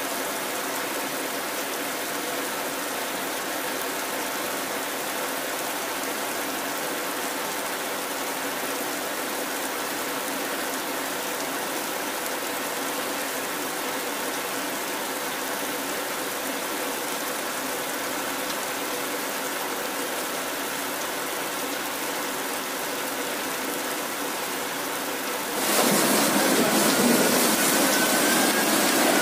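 Wind-driven heavy rain in a storm, a steady rush. About 26 seconds in it cuts to a louder, harsher rush of wind and rain through trees, with a faint wavering whistle near the end.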